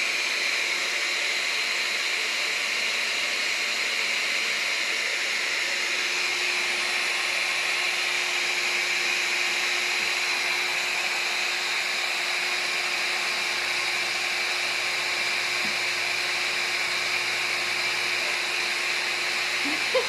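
Vacuum cleaner motor running steadily.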